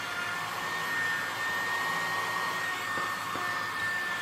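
Cheap USB mini vacuum cleaner running: its tiny DC motor and fan blade make a steady airy hiss with a high, even whine.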